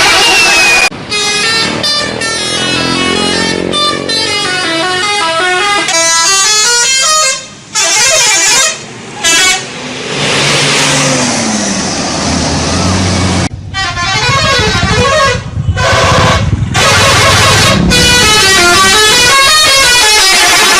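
Bus telolet horns, sets of multi-tone musical air horns playing quick stepped tunes that climb and fall, sounded in repeated bursts with short breaks between.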